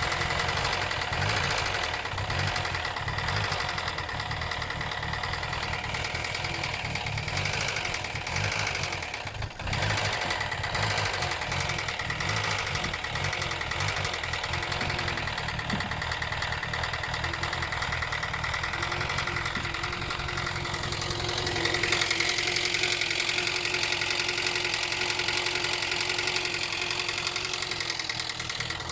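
2012 Hyundai Elantra engine running with a rapid knocking, a knock whose cause the owner cannot place in a car that also stalls. The running sags briefly about nine seconds in and picks up again; near twenty-two seconds the sound shifts, with less of the deep rumble, more hiss and a steady hum.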